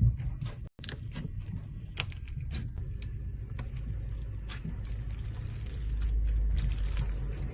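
Slime being squeezed and handled: irregular sticky clicks and crackles over a low rumble, with a brief cut about a second in.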